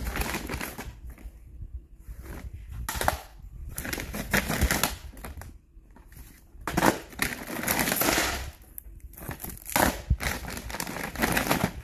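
Plastic DVD and Blu-ray cases clacking against one another and a woven plastic IKEA bag rustling as hands rummage through the pile, in irregular bursts with sharp clicks.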